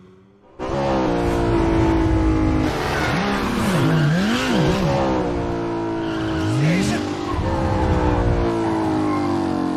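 Car and sport motorcycle engines revving hard in a street chase, with tyre squeal, played backwards: the engine notes mostly slide down in pitch instead of up. The sound cuts in suddenly about half a second in after a quiet start.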